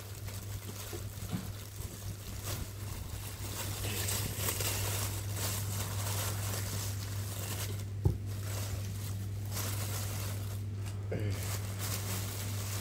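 Thin plastic carrier bag rustling and crinkling as it is handled and opened, with a steady low hum underneath and a single sharp knock about eight seconds in.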